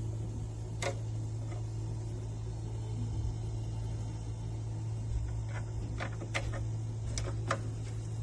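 A steady low hum with a few sharp clicks scattered through it, one about a second in and several close together in the last few seconds.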